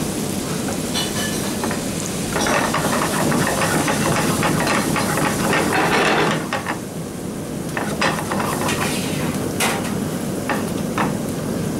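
Butter sizzling and frothing in a frying pan on a commercial range, melting toward brown butter. The sizzle swells for a few seconds in the first half and then settles lower, with a few sharp metal clicks near the end.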